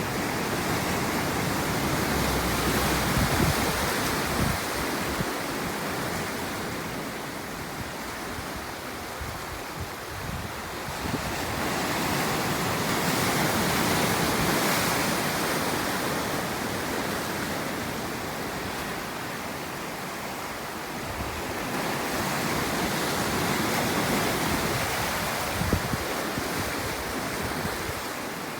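Ocean surf: waves breaking and washing up the shore in slow surges, swelling and fading about every ten seconds. Now and then wind buffets the microphone with a low thump.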